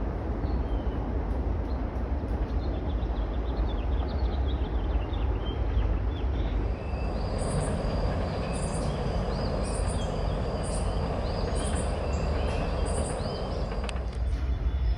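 Train passing with a steady low rumble, just after sounding its horn; faint bird chirps are heard over it.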